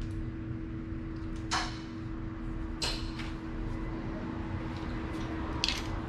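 A few short metallic clicks and scrapes of hand tools and parts being handled, against a steady low hum.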